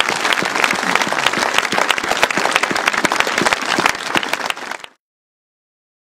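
Crowd applauding, a dense patter of many hand claps that cuts off suddenly about five seconds in.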